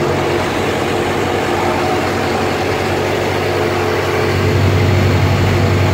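Boat engine running steadily at cruising speed, a low hum over the rush of the churning wake; the hum grows louder about four seconds in.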